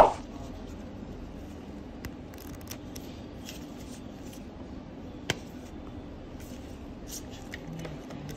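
Paper and cardboard phone-box packaging handled with gloved hands: the warranty-card envelope and box insert rustling and scraping. A sharp knock comes at the very start and a single click about five seconds in, over a steady low hum.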